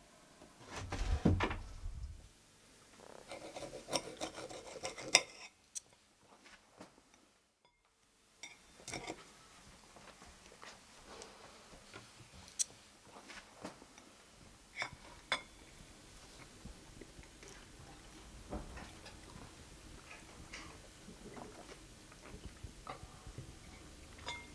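Quiet meal sounds: dishes and cutlery handled and food being eaten, heard as scattered small clicks and knocks. There is a dull thump about a second in and a stretch of rubbing, scraping noise a few seconds later.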